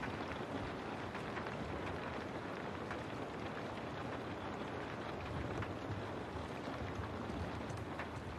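Steady rain falling, with scattered sharper drop taps over a low continuous rumble that grows a little stronger in the second half.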